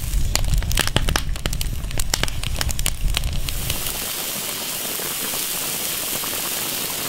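Wood fire under a wok crackling, with many sharp pops over a low rumble. About four seconds in, this gives way to a steady, even hiss of the cured-rib stew simmering in the wok.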